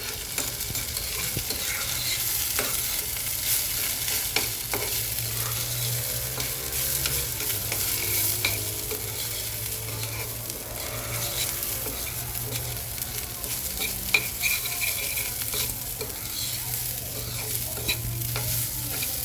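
Washed rice stirred in a pot of hot chicken fat and garlic oil, sizzling steadily, with scattered clicks and scrapes of the utensil against the pot and a steady low hum underneath.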